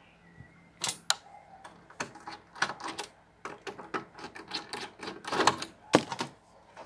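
Irregular clicks, taps and short rattles from handling a turntable's dust cover while the four screws holding it on are taken out.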